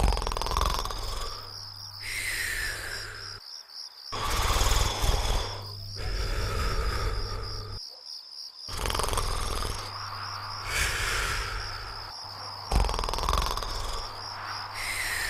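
Cartoon snoring in slow, even cycles: a loud rasping snore, then a whistle that falls in pitch, repeating about every four seconds over a steady high chirping.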